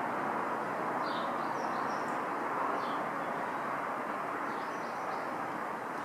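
Steady background rumble of distant traffic, with a few faint high bird chirps about a second in, near three seconds and again near five seconds.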